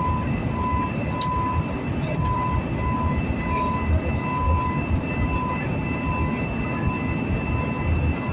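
Airliner cabin noise in flight: a steady low rumble of the jet engines and airflow, with a faint high whine over it.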